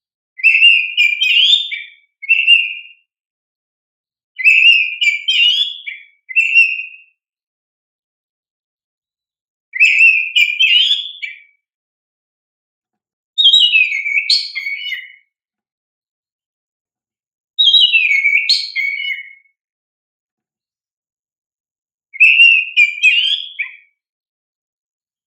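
Oriental magpie-robin (kacer) singing: six bouts of loud, whistled phrases with quick up-and-down glides, each about one and a half to two seconds long, a couple followed by a short extra note, with a few seconds of silence between bouts.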